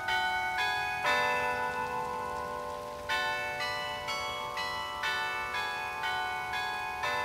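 The bells of Central Park's Delacorte musical clock chime a slow tune, a new ringing note about every half second, over steady falling rain.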